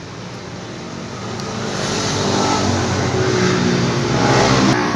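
A motor vehicle engine running, growing steadily louder over the first few seconds and then holding, with a sharp click near the end.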